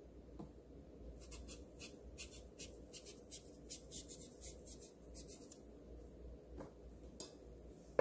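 Kitchen knife paring strips of skin off a cucumber held in the hand: a quick run of short, faint scraping strokes, about four a second, then a couple of single strokes near the end.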